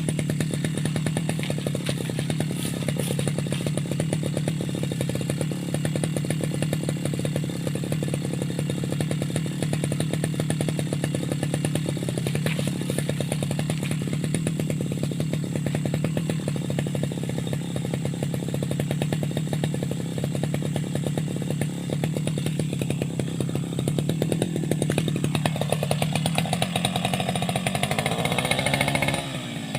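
Petrol brush cutter engine running steadily with the blade fitted, then revving up over the last few seconds before dropping back near the end.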